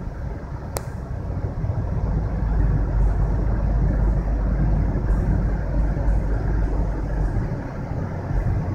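Steady low rumble of road and engine noise inside the cabin of a moving 2010 Toyota Prius, growing louder about two seconds in. A single sharp click just under a second in.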